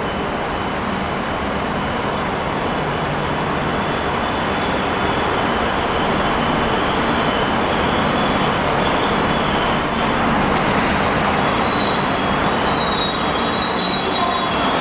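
Train on the move with a steady rumble that grows slowly louder, and thin high wheel squeals coming in from about five seconds in.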